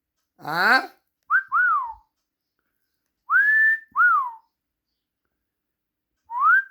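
Clear whistling in three short phrases a couple of seconds apart, each sweeping up and then down in pitch like a wolf whistle.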